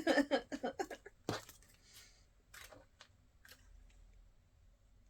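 Small plastic blind-box packaging being handled and crinkled in a quick flurry of short rustles, then a single tap about a second in, followed by faint scattered ticks.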